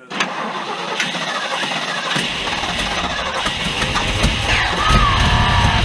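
Starter cranking the 1974 Ford F-350's 390 V8, a first start attempt on an engine that hasn't run in years, while fuel is sprayed into the carburetor. A heavier low rumble joins in about two seconds in.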